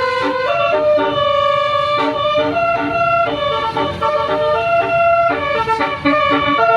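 Bus telolet basuri horn playing a melody: a run of held notes stepping up and down in pitch, several tones sounding together, over a low rumble.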